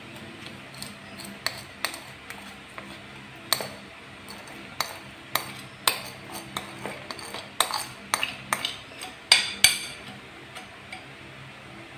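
A spoon scraping and knocking against the inside of a plastic bowl as wet cassava starch sediment is scooped out, in irregular sharp clicks that come faster and louder in the last few seconds.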